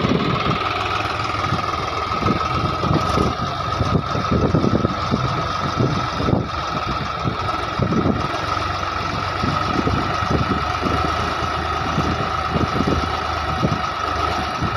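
Swaraj 735 FE tractor's three-cylinder diesel engine running hard under heavy load, pulling an overloaded sand trolley that is stuck in soft sand. It runs steadily throughout.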